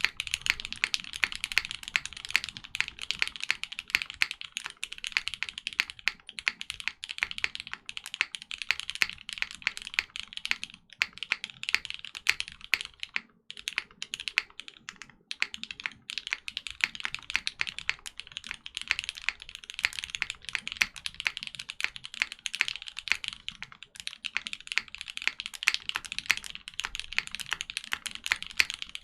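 Fast, continuous typing on a Kohaku 65% custom mechanical keyboard with lubed and filmed Cherry MX Black Ultraglide linear switches, a polycarbonate plate, Poron gasket mount and GMK Olivia keycaps: a dense run of keystrokes with a few short pauses a little before the middle.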